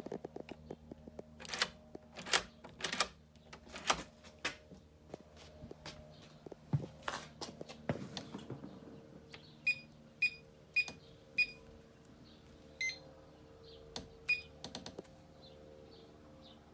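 Electronic keypad deadbolt being handled and keyed: irregular clicks and knocks, then the keypad beeping as buttons are pressed. There are four short beeps about half a second apart, then a longer tone and one more short beep, as the lock is being programmed.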